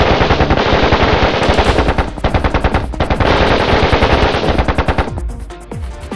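Kalashnikov-type assault rifles firing on full automatic in long rapid bursts, with short breaks about two and three seconds in. The firing stops near the end and electronic music comes in.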